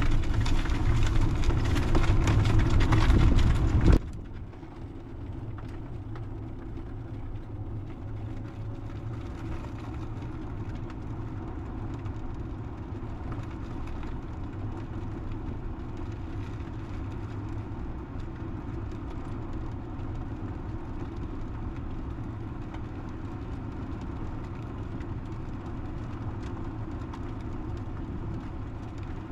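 2002 Club Car DS 48-volt electric golf cart rolling slowly at about 4–5 mph, a steady low rumble of tyres and drivetrain. For the first four seconds a louder rushing noise covers it, then cuts off abruptly.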